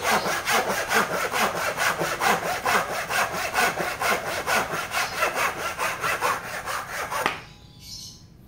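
Ikura ryoba-style Japanese pull saw cutting through a dry wooden rafter with rapid, even strokes, then stopping abruptly about seven seconds in as the cut goes through and the piece drops off.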